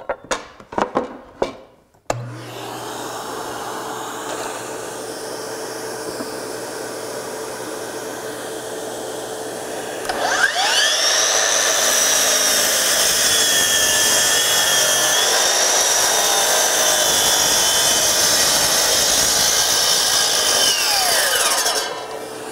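A few knocks and clicks, then about two seconds in a dust extractor starts and runs steadily. About ten seconds in, the DEWALT FlexVolt 60V DCS781 12-inch sliding miter saw spins up with a rising whine and cuts through a wooden board at 45 degrees for about ten seconds, then winds down quickly near the end while the extractor keeps running.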